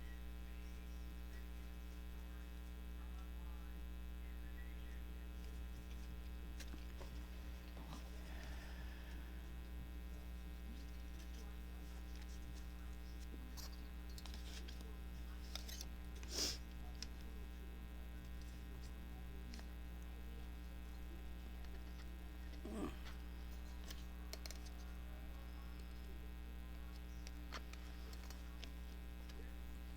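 Steady electrical mains hum, with faint paper handling and a few light taps as papers are lined up on a craft table, the clearest about halfway through and again a few seconds later.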